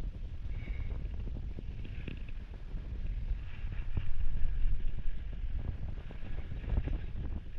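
Wind buffeting the microphone: a gusting low rumble that swells about four seconds in, with faint scattered clicks.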